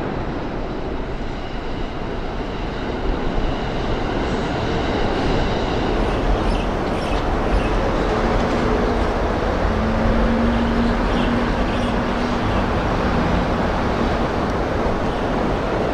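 Electric commuter train running past on the line, a steady rumble of wheels on rails. A faint high whine can be heard for the first few seconds, and a low steady tone comes in a little past the middle.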